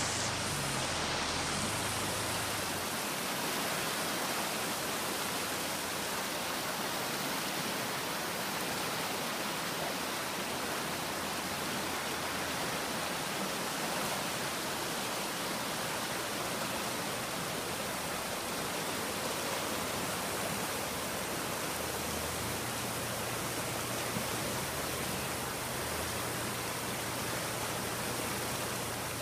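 Floodwater rushing steadily over a submerged causeway, spilling over its concrete edge.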